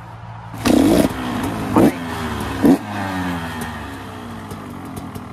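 2022 KTM 125 SX single-cylinder two-stroke with an FMF exhaust, kick-started on the stand for a sound test: it fires about half a second in and is blipped hard twice more, each rev rising sharply, then the revs fall away.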